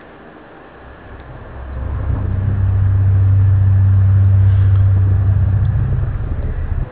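A deep, steady droning hum that swells up over about a second, holds at one low pitch, then cuts off abruptly near the end.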